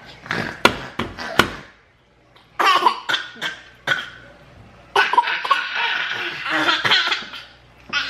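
Children laughing: a few short, sharp bursts in the first second and a half, a couple more around the middle, then longer, fuller laughter from about five seconds in.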